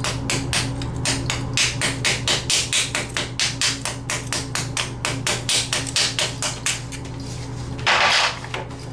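Hammer striking a chisel in a rapid, even rhythm, about four to five blows a second, chipping old mortar off concrete. The blows stop about seven seconds in, followed by a short burst of noise.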